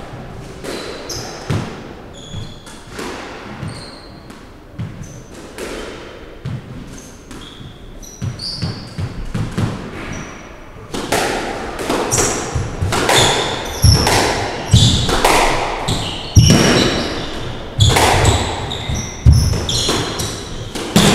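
Squash ball and rackets on a hardwood court: sparse ball bounces and shoe squeaks at first, then from about halfway a rally of sharp racket strikes and ball smacks off the walls, with trainers squeaking on the wooden floor.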